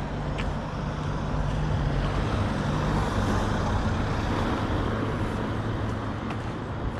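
A motor vehicle driving past, with an engine hum under its road noise, growing to its loudest about two to three seconds in and then fading.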